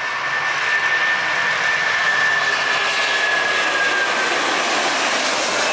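Air China Airbus A330 twin-jet airliner taking off at full thrust: a loud jet roar with a high whine that drifts slightly lower over a few seconds. It cuts off suddenly near the end.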